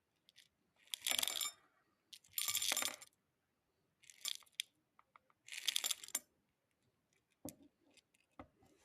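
Airgun pellets rattling in their container, shaken in four short bursts, followed by a couple of sharp clicks near the end.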